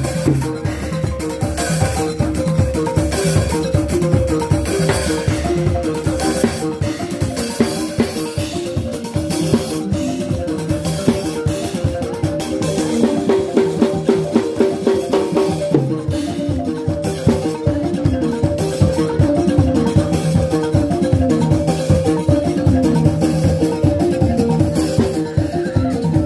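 Balafon playing a quick, repeating pattern of short wooden xylophone notes, with drums beating along.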